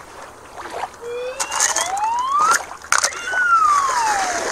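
Slide-whistle sound effect: a smooth tone glides up for about a second and a half, then slides back down. A couple of splashes come near the middle as a rubber toy squid is pulled out of shallow water.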